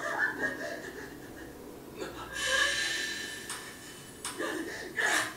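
Anime fight-scene soundtrack playing quietly: a character's breathing and gasps, a hiss about two seconds in, and a few sharp hits near the end.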